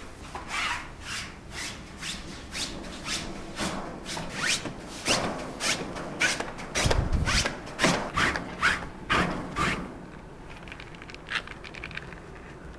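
Repeated rubbing strokes, about two a second, of hand scrubbing during house cleaning. They stop about ten seconds in, and a few fainter ones follow.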